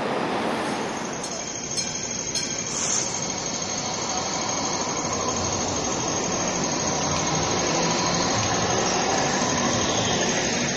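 Hong Kong Light Rail car running past close by, a steady rumble of wheels on rails with a thin, steady high-pitched squeal from the wheels. A few sharp clicks come about two to three seconds in.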